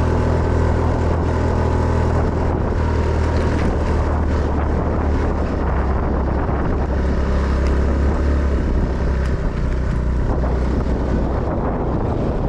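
Motorcycle engine running steadily under way, its note dipping slightly a couple of times.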